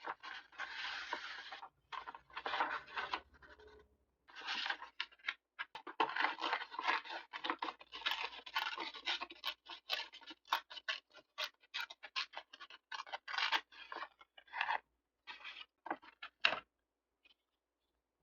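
Paper being handled, rustling and scratching in many quick strokes, with short pauses, stopping near the end.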